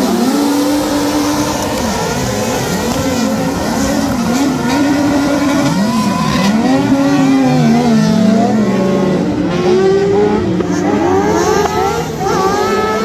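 A pack of autocross buggies launching from the start grid and racing off together, many engines revving at once, their pitches rising and falling over each other as they shift gears.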